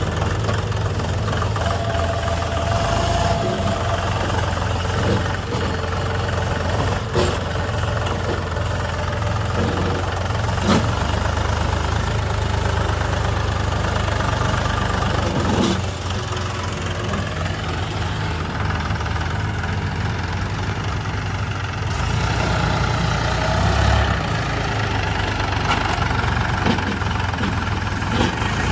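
Diesel engines of a JCB 3DX backhoe loader and a tractor running steadily at low speed, with a few sharp knocks spread through.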